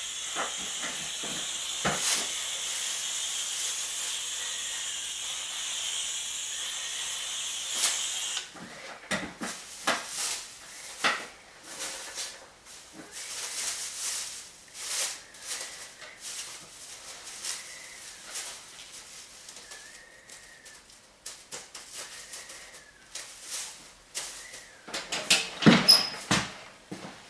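Aerosol spray can hissing steadily, stopping about eight seconds in. Then come scattered clicks and crinkles of plastic sheeting being handled, and a few louder knocks near the end as a person steps down an aluminium stepladder.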